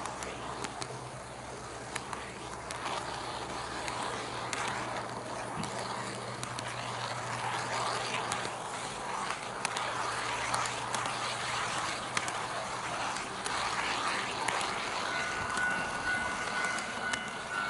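HO-gauge model train running on Kato Unitrack, its wheels clicking over the rail joints and points, slowly getting louder. About fifteen seconds in, a model level-crossing alarm starts with steady electronic tones.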